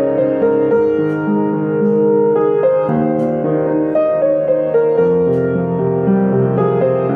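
Upright piano played, sustained chords under a melody line, the harmony shifting every second or two, as in a pop song arranged for solo piano.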